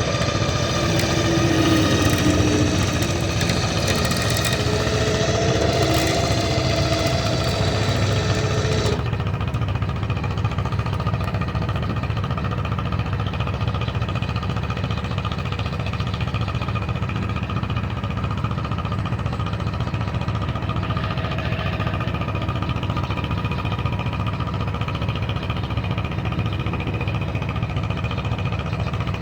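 An engine running steadily throughout. A higher, wavering layer over it cuts off abruptly about nine seconds in.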